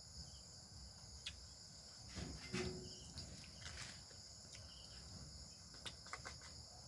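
A steady, high-pitched insect chorus, typical of crickets, with a few soft clicks and knocks; the loudest knock comes about two and a half seconds in.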